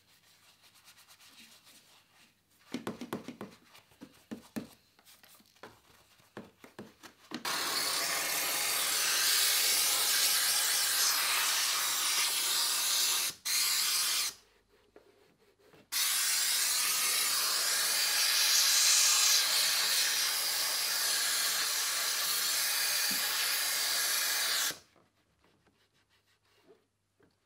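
A small detailing brush scrubs engine-bay plastics. Then a steam cleaner's nozzle hisses steadily as it blows steam over the engine cover. The steam cuts off briefly twice in the middle and stops a couple of seconds before the end.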